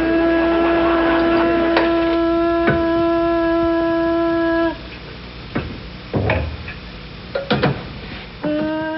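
A steady, horn-like note held for almost five seconds, then a few sharp knocks and clacks. The same note starts again near the end.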